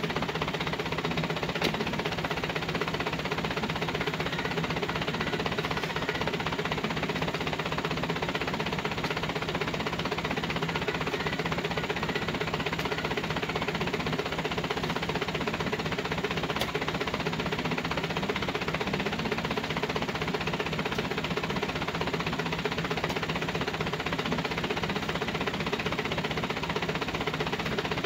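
Light truck's engine idling steadily, a constant rapid chugging with no change in speed.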